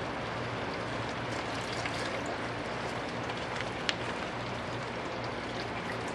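Water trickling and splashing from a plastic gold pan into a bucket of water as the pan of concentrates is rinsed and tilted, over a steady low hum from the water pump's engine. A single sharp click about four seconds in.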